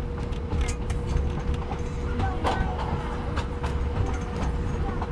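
Passenger train carriage rolling slowly, heard from inside: a steady low rumble with scattered clicks and knocks at irregular times.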